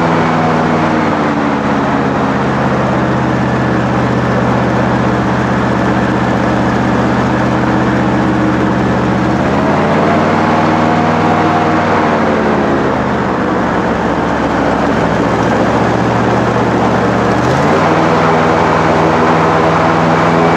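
Airboat's engine and big air propeller running loud at speed, the pitch dropping and climbing several times as the throttle is eased and opened again.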